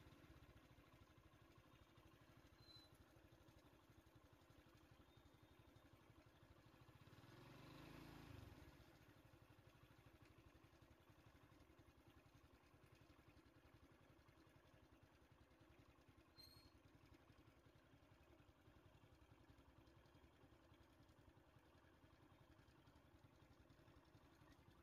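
Near silence: faint outdoor background, with one brief swell of low rumble about eight seconds in that cuts off suddenly.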